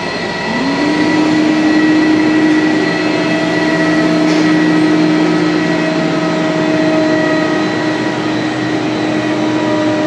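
Compressed-air plant running: a rotary screw air compressor and a refrigerated air dryer, with a steady whine and hum. About half a second in a motor spins up, its hum rising in pitch and then holding steady.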